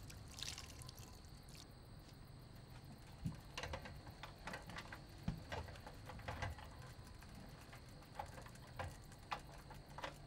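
Faint, irregular clicks and light taps from a bicycle loaded with plastic water jerry cans as it is moved along a path, most of them in the second half.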